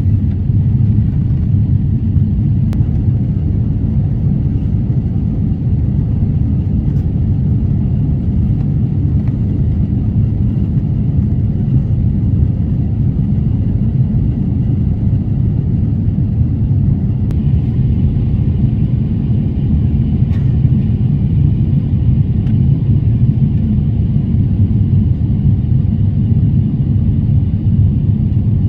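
Steady low roar of an Airbus A350-900's passenger cabin in flight, engine and airflow noise heard from inside.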